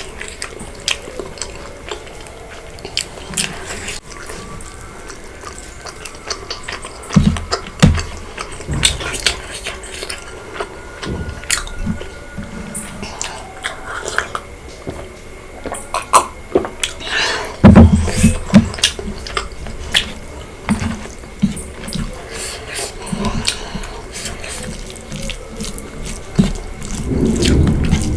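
Close-miked wet eating sounds: chewing and mouth smacking on pork curry, bamboo shoot and rice, with many small sticky clicks and louder bursts of chewing a few times.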